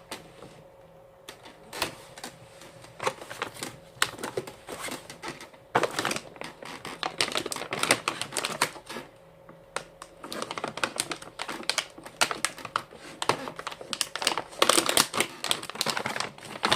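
Irregular clicking and light rattling of plastic being handled, as a portable mini fridge and its power cord are taken out and checked.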